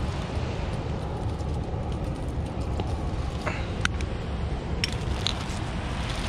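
Wind buffeting the microphone, a steady low rumble, with a few light clicks from condiment bottles being handled about halfway through.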